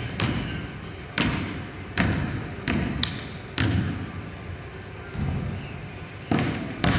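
Basketball bouncing on a hardwood gym floor, about nine irregular bounces roughly a second apart. Each bounce echoes around the large hall.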